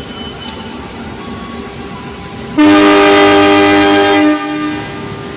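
Diesel locomotive's air horn sounding one chord blast of a little under two seconds, beginning about halfway in, over the steady running of the locomotive's engine.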